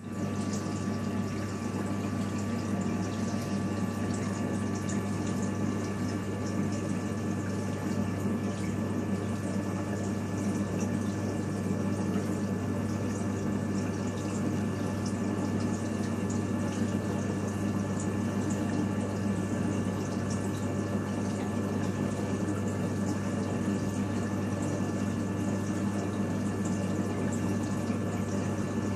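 Reef aquarium's pumps and circulating water running steadily: an even water rush over a constant low hum, with faint steady higher whines.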